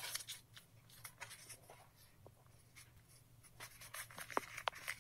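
A sheet of thin colour paper being handled and folded: soft crinkling and rustling, busiest at the start and again in the last second or so, with a couple of sharper crackles near the end. A faint steady low hum lies underneath.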